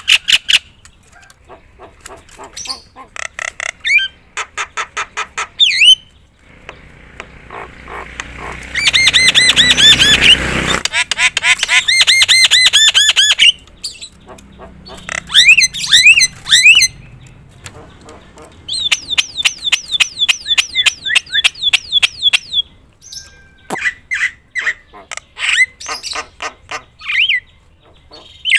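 Javan myna singing loudly: rapid runs of repeated short notes and sharp whistled trills, with a harsh, rasping stretch about a third of the way in.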